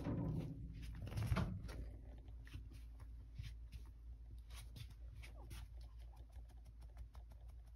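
A cat crunching dry food: faint, irregular little clicks, with two louder low thuds in the first second and a half.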